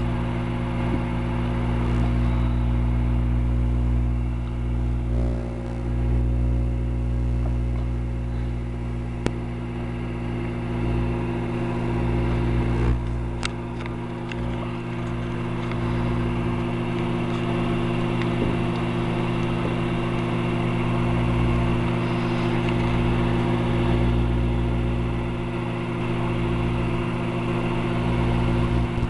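Microwave oven running with a steady hum while it heats sea salt, with a few faint sharp clicks from the salt crackling.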